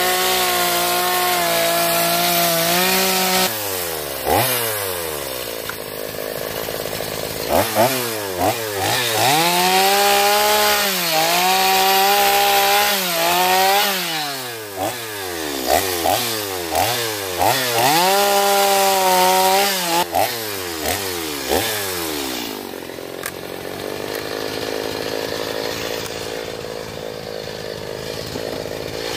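Gas chainsaw cutting into wood at full throttle, then revved up and let back down again and again as the cuts are made. It is quieter in the last several seconds.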